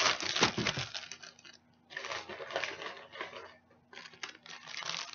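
Zip-top plastic bag of seasoned flour crinkling and rustling in three bursts as chicken wings are pulled out of it.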